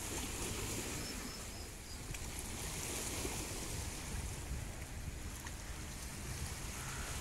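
Wind buffeting the microphone in an uneven low rumble, over a steady outdoor hiss of small waves on the shore.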